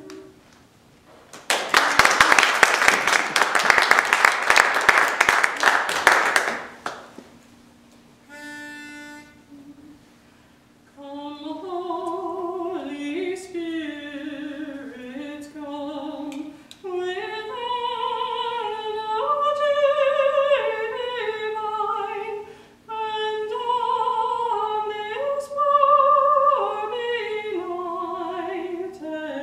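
Audience applause for about five seconds, then a short single held note, then a women's vocal quartet begins singing a cappella in close harmony.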